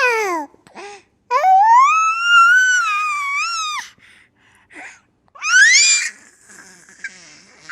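A baby's high-pitched vocalising. A squeal trails off just after the start, then comes one long drawn-out wailing squeal of about two and a half seconds, and a quick rising squeal a few seconds later.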